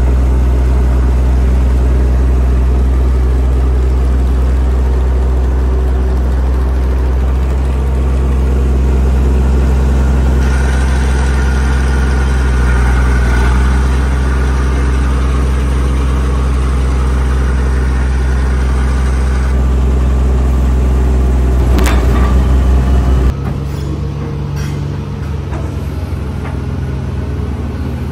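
Vintage Caterpillar crawler dozer's diesel engine running at a steady, low note while the dozer pushes dirt. A little before the end the sound drops and changes to a hydraulic excavator working.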